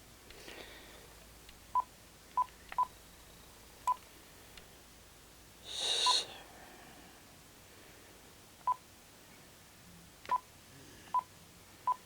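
Phone keypad beeping as a number is tapped in: nine short, single-pitched beeps at uneven intervals, with one brief noisy rustle about six seconds in.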